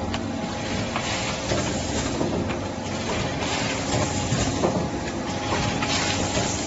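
Automatic pouch filling and packaging machine running: a steady mechanical clatter and hum, with short bursts of hiss every second or two.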